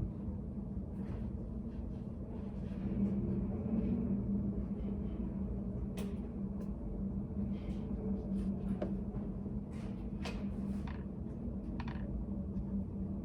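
Study cafe room ambience: a steady low hum, with scattered small clicks and taps.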